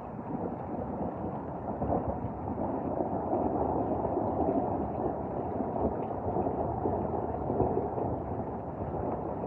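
Thunderstorm noise: a low, continuous rumble that swells over the first few seconds and holds.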